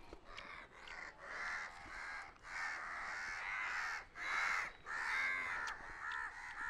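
A flock of crows cawing over and over, harsh calls following one another two or three a second, faint at first and louder from about a second in.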